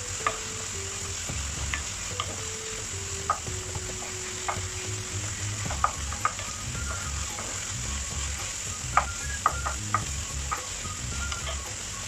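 Ground beef sizzling as it sautés in a frying pan over a gas flame, stirred with a wooden spatula that knocks and scrapes against the pan a dozen or so times.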